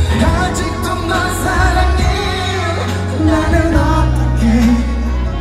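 Live pop music: a male singer into a microphone over a loud backing track with a heavy, steady bass, heard through the concert hall's sound system.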